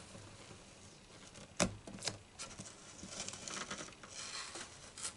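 Masking tape picked at with fingernails and peeled back off a lacquered guitar top: faint scratching and rustling, with two sharp clicks about a second and a half and two seconds in.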